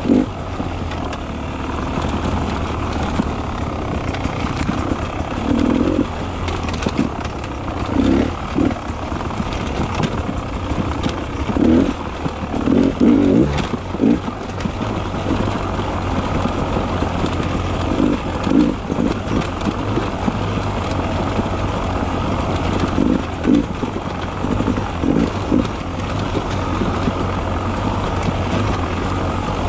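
Beta 300 RR two-stroke enduro dirt bike engine running on single-track trail, the throttle opened and closed in short surges every second or two.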